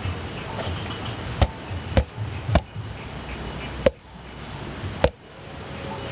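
A blade chopping into a coconut to cut it open. There are five sharp strikes, three in quick succession and then two more spaced further apart.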